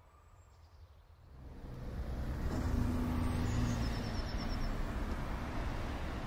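Steady low rumble of road traffic that swells up about a second in, with a short quick run of high chirps near the middle.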